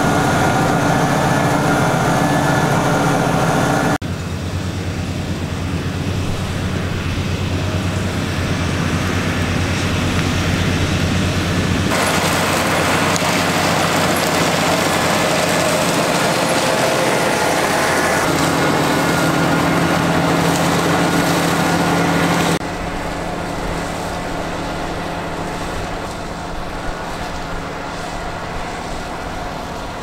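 Valtra T214 tractor's six-cylinder diesel engine running steadily under load while it pulls a plough through the field. The sound changes abruptly three times, at about 4, 12 and 22 seconds in, as it is heard from inside the cab and then from outside.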